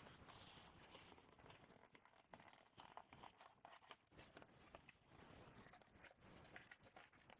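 Faint crinkling and light clicks of trading-card packs and their box being handled.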